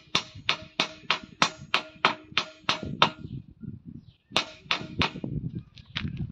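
Steel tool hammering at a freshly welded corner of a steel window frame to knock off the welding slag: a quick run of sharp metallic strikes, about three a second, each ringing briefly in the steel. A pause of about a second, then a few more strikes, lighter near the end.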